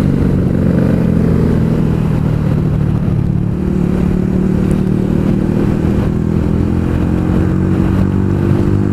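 Honda Africa Twin's parallel-twin engine running at road speed. Its note eases down a little, then slowly climbs again. Wind rushes over the microphone throughout.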